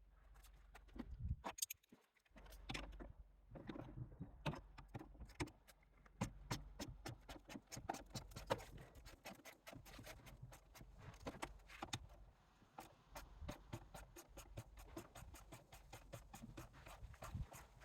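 Small metal clicks, clinks and knocks of hand-tool work on a car body during disassembly, coming irregularly and faster near the end, over a low steady hum.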